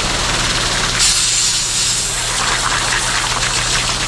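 Pressure washer jet spraying onto roof tiles for a test patch: a loud, steady hiss of water that grows stronger about a second in. A low steady hum runs underneath.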